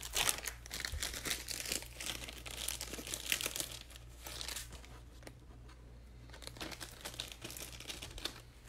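Plastic packaging crinkling and rustling as it is handled, in irregular crackly bursts that are busiest in the first half and ease off for a moment after the middle.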